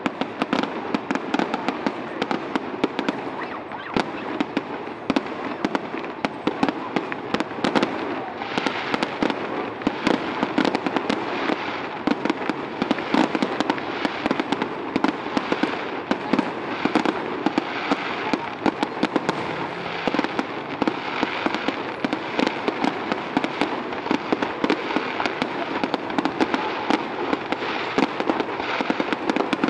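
Fireworks display: aerial shells bursting in a dense, unbroken run of bangs and crackles.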